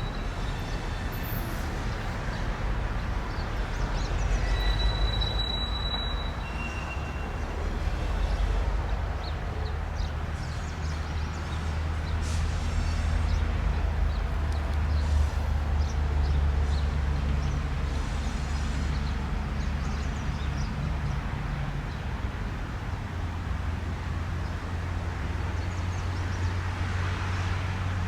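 Diesel-hauled freight train moving along the track: a steady low locomotive engine drone under continuous rolling noise, with a short high squeal about five seconds in.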